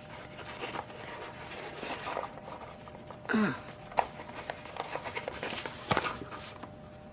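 A small product package being handled and opened by hand: rustling with a few small clicks and ticks, and a brief murmur of a voice about three seconds in.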